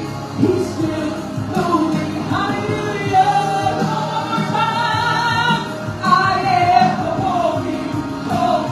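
A woman singing a gospel worship song through a microphone over instrumental accompaniment.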